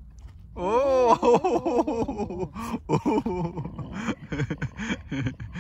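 A person laughing in a high voice. It starts about half a second in with a rising vocal glide and goes on in short, choppy bursts.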